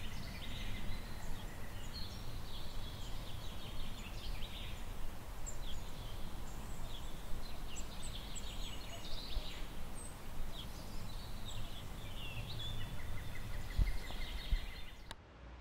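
Outdoor ambience of many small birds chirping in short scattered calls over a steady low background rumble; it cuts off abruptly near the end.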